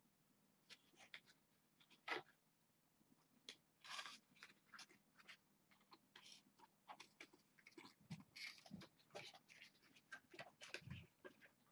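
Faint rustling and crinkling of a white posterboard strip being handled, with a tie threaded through it, in short scattered bursts. A few soft low thumps come in the second half.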